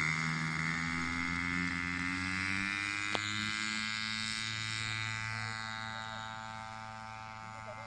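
A small engine running with a buzzing note that slowly drops in pitch and fades a little toward the end. There is a single sharp click about three seconds in.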